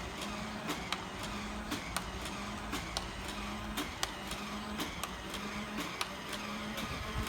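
Motorized Nerf blaster running its motor with a steady low hum, firing darts with a sharp click about once a second.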